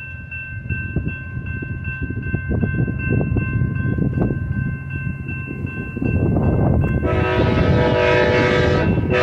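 Railroad crossing bell ringing steadily while the gate arms lower, over a low rumble that grows louder. About seven seconds in, the horn of the approaching Amtrak train sounds, loud and held to the end.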